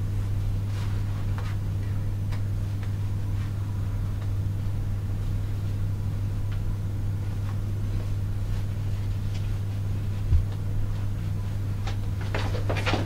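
Steady low electrical or ventilation hum in a tiled room, with faint rustling and light clicks of hair being gathered and tied into a ponytail. A soft thump about ten seconds in, and louder rustling of movement near the end.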